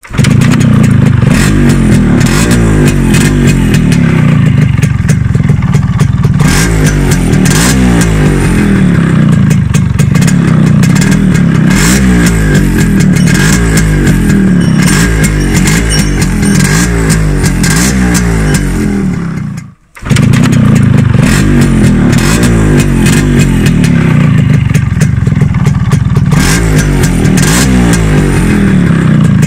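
Yamaha RX135 two-stroke single-cylinder motorcycle engine, about 20 years old, running and being revved up and down over and over. There is a brief gap a little past two-thirds of the way through.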